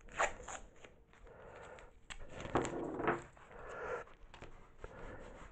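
Sheets of drawing paper rustling and crackling as they are handled and pressed flat, with a few sharp clicks near the start.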